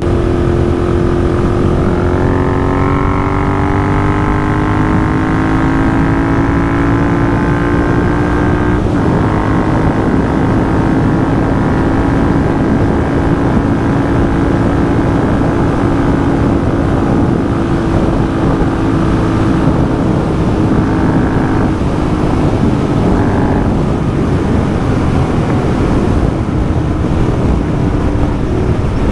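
Royal Enfield 650 parallel-twin motorcycle engine under way, its pitch rising steadily as the bike accelerates. About nine seconds in there is a gear change, after which it runs at a steady cruise.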